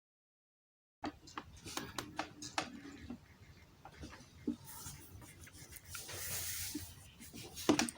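Digital silence for about a second, then a run of light clicks, taps and rubbing from small hard objects being handled, with a brief hissing rustle about six seconds in and a sharper click near the end.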